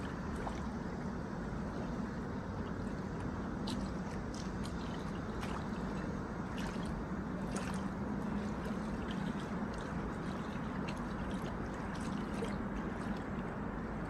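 Small ripples lapping at a reedy riverbank, with scattered soft splashes and trickles over a steady low rumble.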